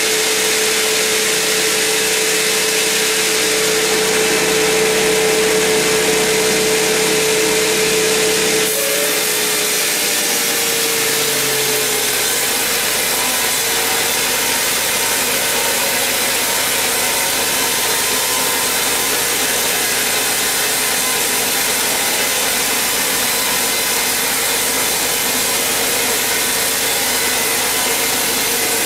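A large band sawmill's blade cutting lengthwise through a huge mahogany log, a steady loud sawing hiss and whine. About nine seconds in, a steady tone within it drops a little in pitch and fades out, while the sawing goes on.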